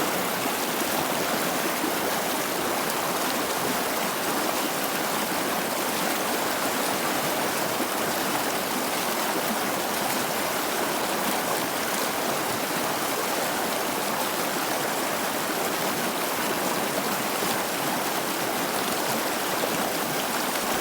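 Flowing water: a steady, even rush with no separate splashes or drops standing out.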